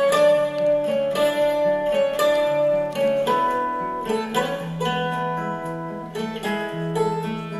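Instrumental background music of plucked-string notes over a bass line.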